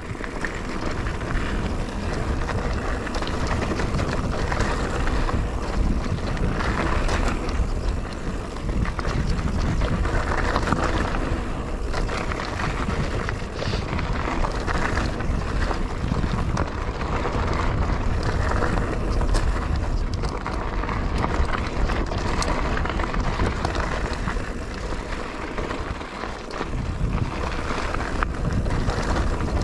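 Mountain bike ridden along a dirt trail: continuous tyre noise and wind on the microphone, with frequent clicks and rattles from the bike.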